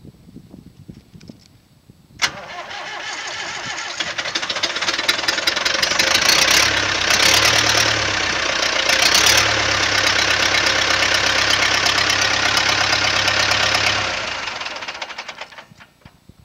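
Ursus C-355M's swapped-in four-cylinder Zetor 7211 diesel engine being started. A sharp click about two seconds in is followed by a few seconds of cranking that builds up until the engine catches. It runs with a brief rise and dip in revs, then runs steadily before winding down and stopping near the end.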